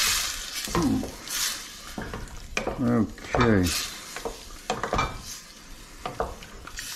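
A spoon stirring and scraping through a pot of meat sauce with tomatoes over high heat, with a light sizzle and a few knocks of the spoon against the pot.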